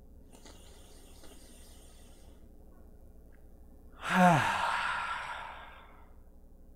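A man takes a deep breath: a faint breath in, then about four seconds in a loud sigh out, voiced at first and falling in pitch, fading away over about two seconds.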